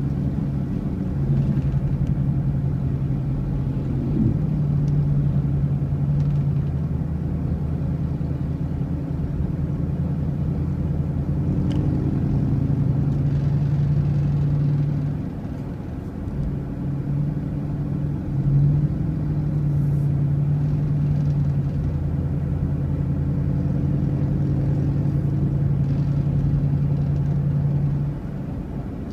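A motor vehicle's engine running steadily at road speed, a low drone with a steady pitch that dips briefly about halfway through and again near the end.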